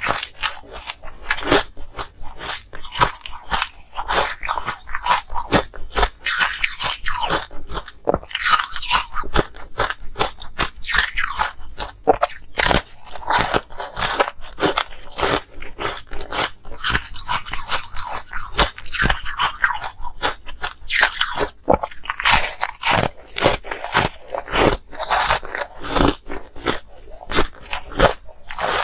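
Close-miked biting and chewing of frosted moulded ice pieces: a dense, continuous run of crisp cracks and crunches as the ice breaks between the teeth.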